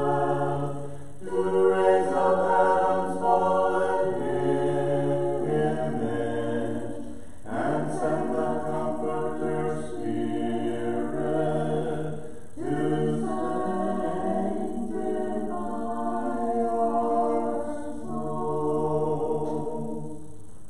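Orthodox liturgical chant sung by an unaccompanied choir, in held phrases of a few seconds each with short breaths between them. The singing stops just before the end.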